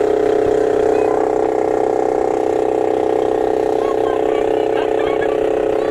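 The engine of a small wooden motor boat running steadily underway, a constant even drone.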